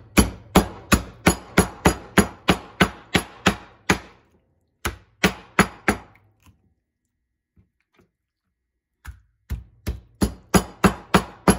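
Cleaver chopping through a Cornish hen onto a wooden cutting board: a fast run of chops, about four a second, then a few slower ones, a pause, and another quick run near the end.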